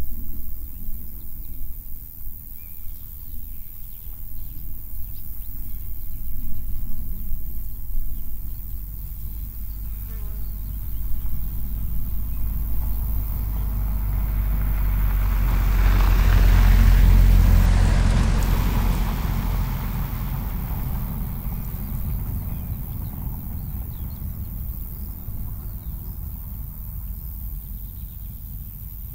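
Outdoor field ambience recorded in stereo with a pair of small condenser microphones in ORTF configuration: a steady low rumble with faint buzzing insects. A vehicle passes, swelling slowly to its loudest about 17 seconds in and fading away a few seconds later.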